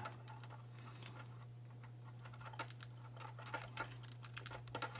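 Faint, irregular small metallic clicks and ticks of a lock pick working in the keyway of a Burg Wächter padlock, coming more often near the end, over a steady low hum.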